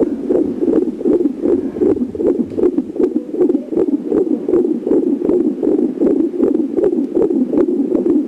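Fetal heartbeat heard over the pregnant abdomen: fast, even, muffled beats, a little over two a second.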